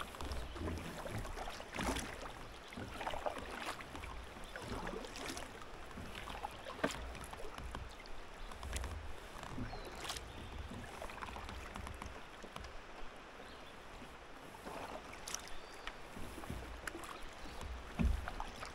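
Double-bladed kayak paddle dipping into calm water in alternating strokes, with drips and light splashes every second or two.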